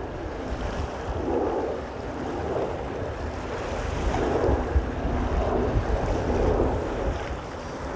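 Wind buffeting the microphone in uneven gusts, over small waves washing onto a sandy shore.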